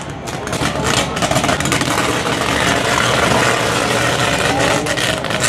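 Electrical arcing from burning power lines, throwing off showers of sparks: a loud, steady, harsh buzzing that swells about a second in and holds.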